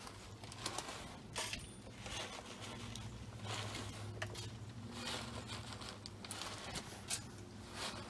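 A bag of bird seed rustling as seed is sprinkled by hand onto a wooden bird table: scattered short rustles and light ticks.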